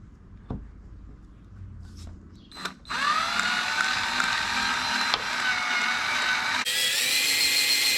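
Cordless drill motor spinning up about three seconds in with a rising whine, running steadily, then jumping to a higher speed near the end before stopping. A few faint clicks come before it.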